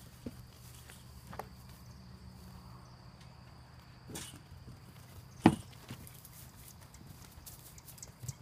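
Mule foal's hooves thudding on dirt and straw as she runs and bucks: a few scattered thuds, the loudest about five and a half seconds in, over a steady low hum.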